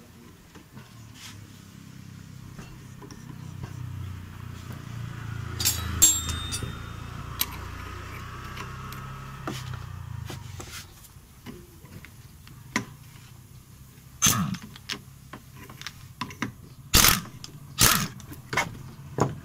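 Metal clicks and clanks of a flywheel puller and socket tools working on a Honda Vario 110's alternator flywheel as it is pulled off the crankshaft, with several sharp clanks in the second half. A low hum swells and fades during the first half.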